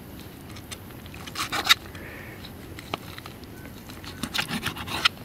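A multi-tool blade cutting through crunchy cooked food, making crackly crunching and scraping in two bouts: about a second and a half in, and again near the end.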